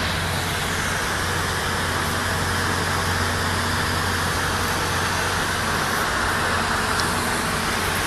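Steady outdoor background noise: an even hiss over a constant low hum, with no distinct events.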